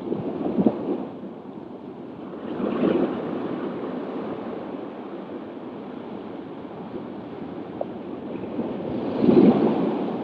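Shallow sea water washing and small waves breaking: a steady rush that swells three times, loudest near the end.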